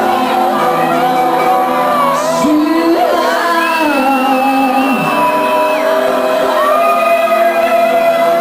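A female singer sings live over loud backing music, holding long notes of a second or two and gliding between pitches, in a large club hall.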